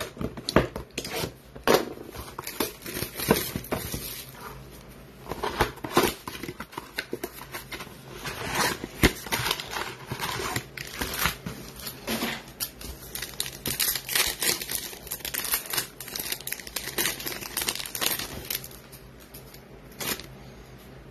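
Foil trading-card packs from a 2020 Panini Playoff football blaster box being torn open and crinkled, with the cardboard box and cards handled, in a run of irregular crackling and ripping sounds.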